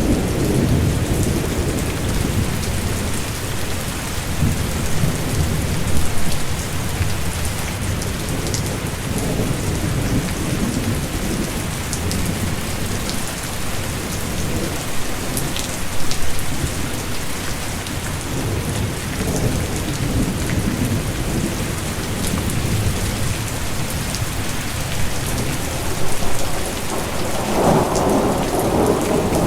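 Steady heavy rain with fine patter of drops, under low rolling thunder that grows louder near the end.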